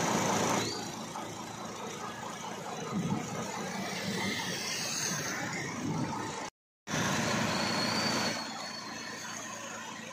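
Road traffic on a flooded highway: truck, bus and car engines running, with tyres swishing through standing water. The noise is louder at the start and again about seven seconds in, and drops out completely for a moment just before that.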